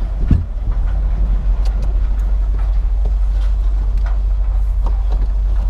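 A vehicle engine idling with a steady low rumble, with a thump about a third of a second in and scattered light clicks and knocks.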